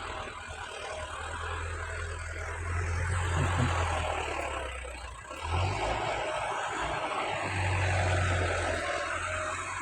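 Farm tractor engine running under load while ploughing, a steady low drone that swells twice and eases between.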